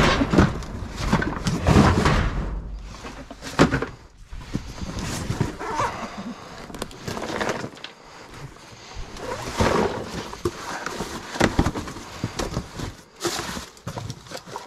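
Cardboard boxes and plastic bags being handled and rummaged through: irregular rustling and scraping with scattered knocks.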